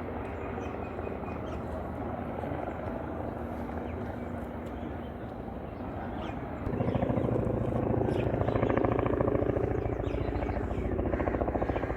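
Helicopter rotor and turbine running, a steady hum that about two-thirds of the way through jumps louder into a fast, even chopping beat.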